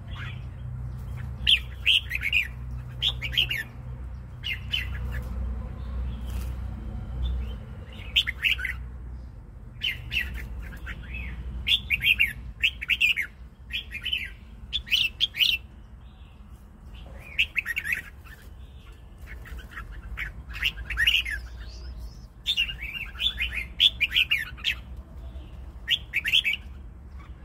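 Caged red-whiskered bulbul singing: short, clear warbled phrases repeated in bursts of two or three, with pauses of a second or two between bursts.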